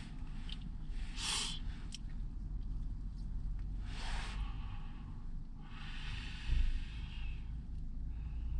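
Breathy exhales from a person, two short ones and a longer softer one near the end, over a steady low rumble.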